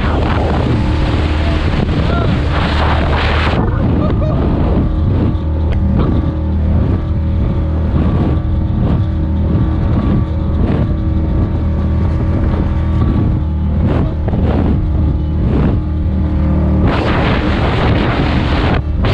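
Progression race boat's engine running steadily under way. Wind buffets the microphone with a louder rush for the first few seconds and again near the end.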